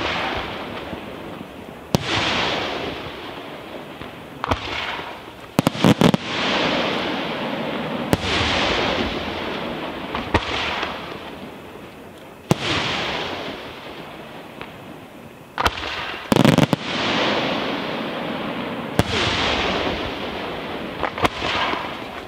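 Fireworks aerial shells bursting overhead, one sharp bang every two to three seconds, with a quick cluster of bangs twice. Each burst trails off over a second or two.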